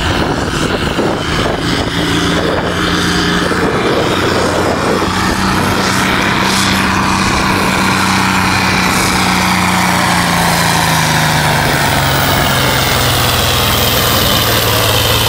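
Modified farm tractor in a tractor pull, pulling the weight-transfer sled at full throttle, its engine running loud and steady. About two-thirds of the way through, the engine pitch drops as the sled's load pulls it down.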